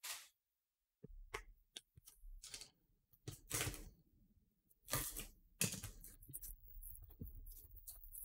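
Plastic shrink wrap crinkling and tearing as a sealed trading-card hobby box is unwrapped by hand, in irregular crackly bursts with small clicks and knocks from the box being handled.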